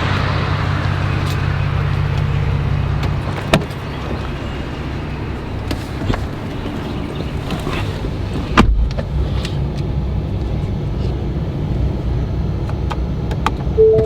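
A car engine running steadily, its low hum dropping a little about three and a half seconds in, with scattered clicks and a heavier knock a little past halfway.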